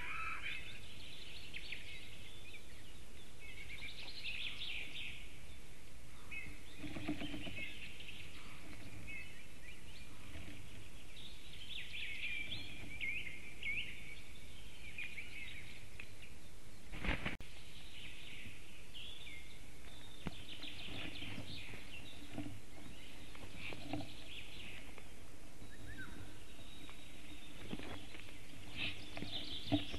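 Small songbirds chirping and trilling in the surrounding forest, scattered high calls over a steady faint background hiss. A single sharp click a little past halfway.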